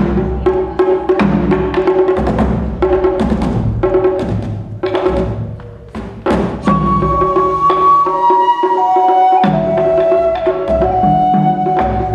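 Live taiko drumming: a large barrel drum on a slanted stand and a small rope-tensioned shime-daiko beaten with sticks in a fast, driving rhythm. About halfway through, after one heavy stroke, a side-blown flute comes in with long held notes over the drums.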